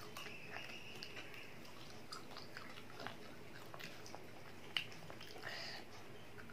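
A child chewing a mouthful of fried chicken lollipop: soft, wet chewing and biting sounds with small clicks, and one sharp click about five seconds in.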